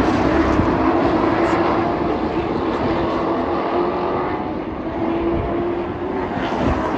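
Racing trucks' engines running at speed during a race: a loud, continuous engine drone that eases slightly about four to five seconds in, then builds again.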